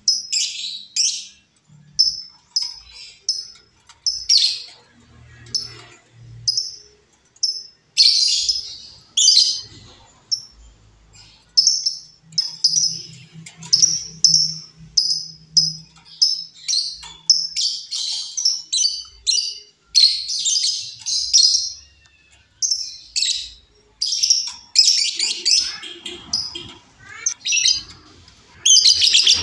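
Female lovebird calling: sharp, high chirps roughly once a second, broken by faster runs of chirps.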